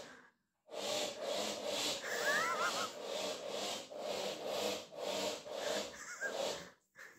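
Rhythmic rubbing strokes, about two a second, starting less than a second in and stopping near the end, with a brief high squeak a couple of seconds in.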